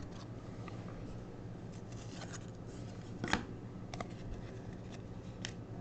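Trading cards being handled: a few soft clicks and slides of card stock, the most distinct about three seconds in, over a low steady hum.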